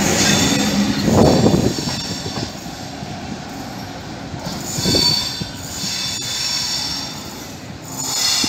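Trenitalia TAF double-deck electric train pulling out, its wheels squealing on the rails. The high squeal comes and goes: at the start, again about five seconds in, and near the end, with a couple of low knocks between.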